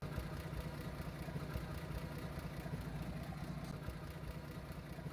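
A car engine idling steadily, cutting in abruptly, with a low hum and an even running beat.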